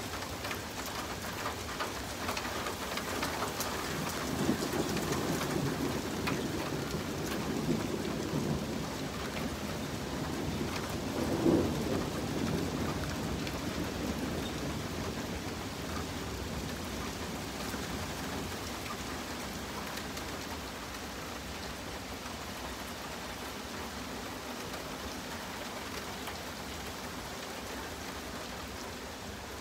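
Steady rain falling on pavement and lawns, with a long roll of thunder that builds about four seconds in, peaks at about eleven seconds and then dies away, leaving the rain.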